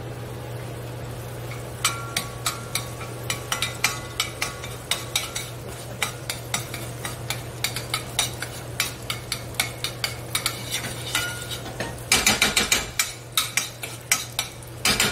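A utensil stirring melting butter in a stainless steel sauté pan: a quick run of sharp clicks and scrapes against the pan, about three or four a second, some with a faint ring. A denser, louder stretch of scraping comes near the end.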